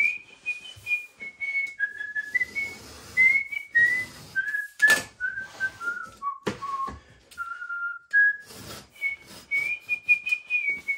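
A man whistling a tune, a melody that steps down and climbs back up again. A few short knocks and clicks of workshop handling fall between the notes.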